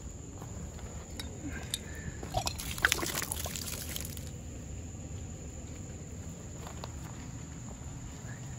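A brown glass bottle picked up off rocky ground: a short clatter of glass and stones with a brief splashy rush about two and a half seconds in, over a steady low rumble.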